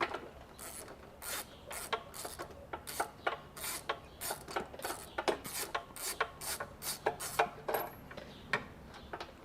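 Ratchet wrench clicking in short back-and-forth strokes, about two clicks a second, as a spark plug is worked out of the Fiat 500's engine.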